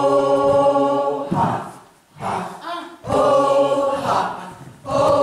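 Voices chanting in unison: long held notes of about a second each, broken by short syllables and pauses for breath, in a repeating pattern.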